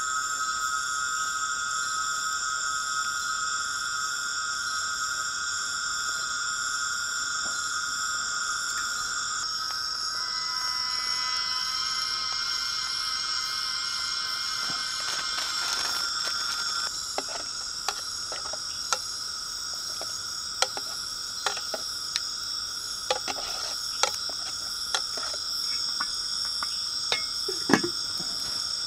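A chorus of night insects chirring steadily in several high, even tones, the mix shifting a couple of times. From about halfway, irregular sharp clicks and knocks sound over it.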